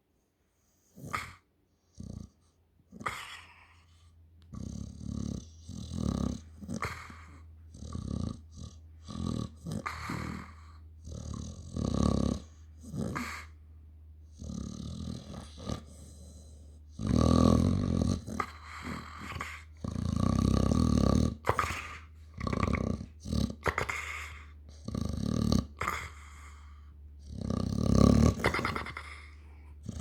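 A sleeping dog snoring: an irregular run of rough, rasping breaths, growing longer and louder past the middle, with the biggest snores around two-thirds of the way in and near the end. A steady low hum runs underneath from a few seconds in.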